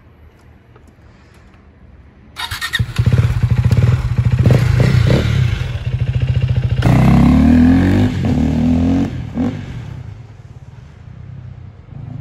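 Sport motorcycle with a modified aftermarket exhaust starting up about two seconds in and running loudly. It is revved hard twice, the pitch rising and falling each time, then settles back toward idle.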